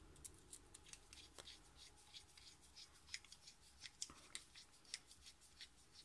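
Faint, irregular light clicks and rustles of small toy-truck parts being handled, close to near silence.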